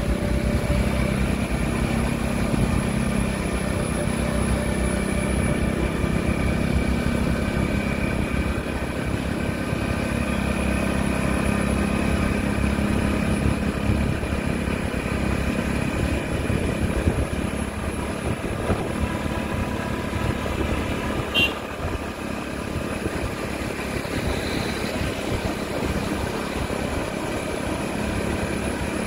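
A road vehicle running steadily on the move, its engine holding several steady tones over road noise. A short click about 21 seconds in.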